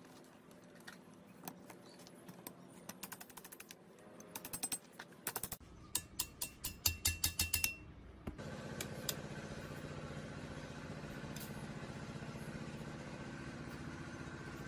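Metal clicks and taps as the foot pump's steel frame, coil spring and pivot pin are handled and fitted together, with a quick run of louder clinks and a short ringing metal note about six to eight seconds in. After that a steady low hum starts and carries on.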